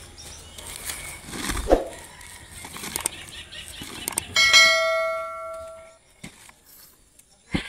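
Hand trowel digging and scraping in loose soil, with a few knocks. About four and a half seconds in comes a single loud bell-like metallic ring that fades away over about a second and a half.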